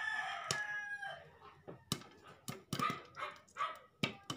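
Popcorn kernels popping in a glass-lidded pan, as single sharp pops every second or so. A rooster crows near the start, the loudest sound, its call falling at the end. A dog barks several times in the second half.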